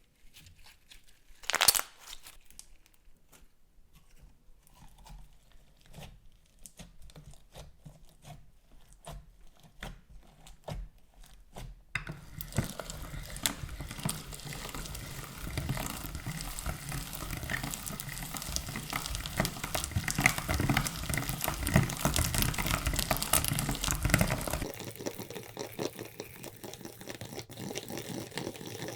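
Slime being squished and mixed by hand, with sticky clicks and pops. It starts as scattered clicks with one sharper snap about two seconds in, then turns into dense, continuous crackling squishing from about twelve seconds in, easing slightly near the end.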